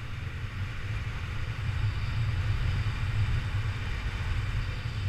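Wind rushing over the microphone of a paraglider's camera in flight: a steady low rumble with a fainter hiss above it.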